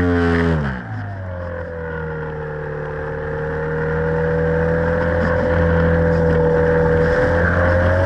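Radio-controlled model airplane's motor and propeller, heard from a camera on the plane. The whine drops sharply in pitch about half a second in as the throttle is pulled back, then runs at a lower, steady pitch and rises slightly near the end.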